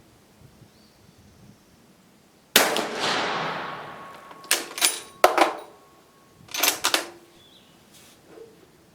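A single Dutch Beaumont rifle shot about two and a half seconds in, its report echoing away over a second or more. Then come two bursts of sharp metallic clacks, the bolt being worked to eject the spent case and chamber the next handloaded round.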